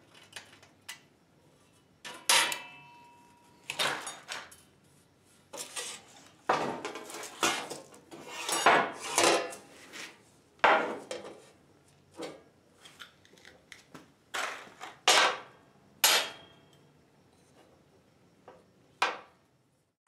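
Sheet-steel door panel, its latch and hand tools clanking and scraping on a workbench: a string of irregular metal knocks and clinks, a few ringing briefly, with a last clank near the end.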